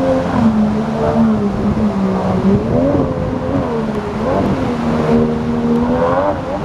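Yamaha 50 jet outboard on an inflatable boat running hard through whitewater rapids, its revs swinging up and down several times, over the steady rush of the rapid.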